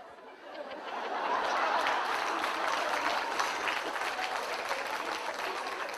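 Audience applauding, swelling up over the first second or two and then continuing steadily.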